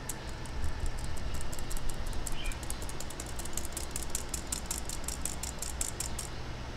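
Fine-mesh stainless steel sieve rattling as it is shaken and tapped by hand to sift flour: a quick, even run of light ticks, about seven a second, that stops near the end.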